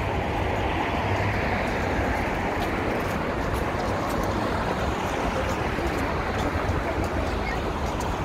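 Steady outdoor roar of city traffic, an even rushing noise with no distinct events.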